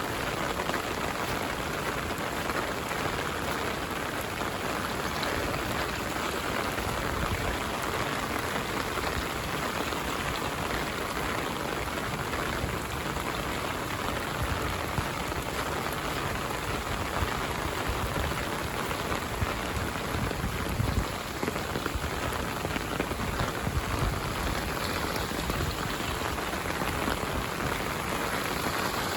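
Heavy rain falling steadily, a dense even patter, with a few brief louder low bumps about two-thirds of the way in.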